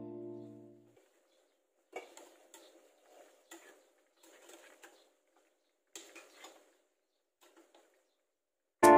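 Background music fades out in the first second. Then chicken leg quarters frying in oil in a pan give faint, irregular crackles and spatters for several seconds. Loud strummed guitar music starts near the end.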